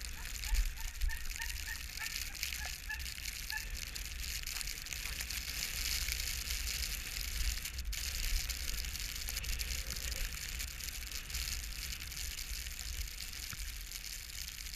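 Blizzard wind buffeting the microphone: a steady rushing hiss over a low rumble. During the first few seconds a row of short high-pitched yips comes about three or four times a second.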